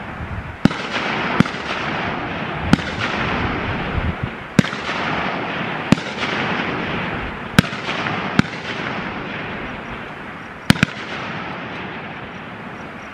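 Rifle shots from several shooters on a firing line: about nine sharp reports at uneven intervals, two of them in quick succession near the end, over a steady background hiss.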